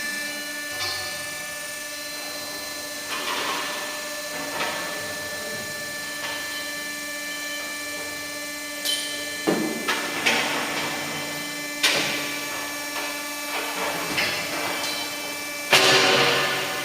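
Industrial double column band saw machine running with a steady hum of several held tones. Sharp metallic clanks and knocks come from about halfway through, the loudest near the end.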